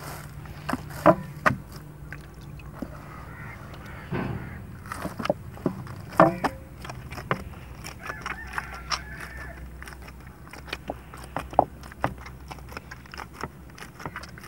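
Wet wheat-flour dough being kneaded by hand in a metal basin: irregular squelches and slaps, loudest about a second in and again about six seconds in.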